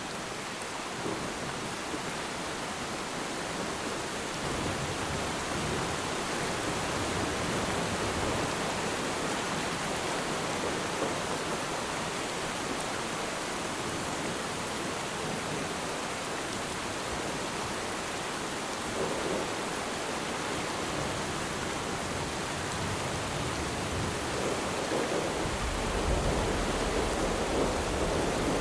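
Steady rain falling on water, an even hiss throughout. Near the end a low rumble of distant thunder builds.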